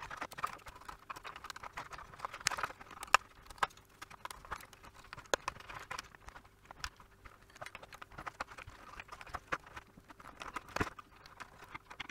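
Hands working the wiring and small plastic connectors of a 3D-printer control board: irregular small clicks and taps, with the rustle of cables being moved.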